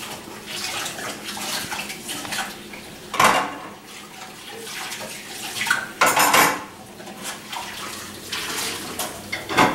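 Dishes and cutlery clattering in a kitchen sink while the tap runs, with louder clanks about three seconds in, around six seconds in and again near the end.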